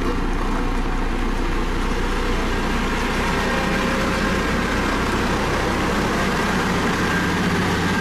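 Dynapac CC522 tandem asphalt roller's diesel engine running steadily as the roller compacts fresh asphalt, a constant low engine hum.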